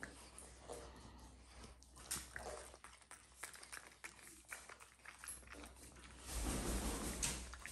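A raccoon chewing a marshmallow: quiet, wet smacking and small mouth clicks, with a louder rustling noise near the end.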